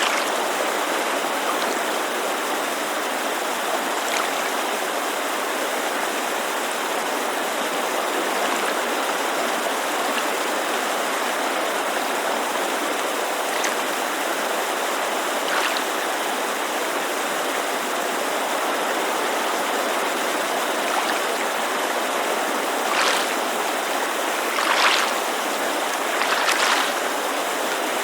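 Steady rushing of a mountain creek mixed with small lake waves lapping against the shore, with a few louder laps near the end.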